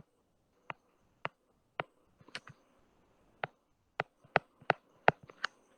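Computer mouse clicking: about fourteen sharp single clicks at uneven intervals, coming closer together in the second half.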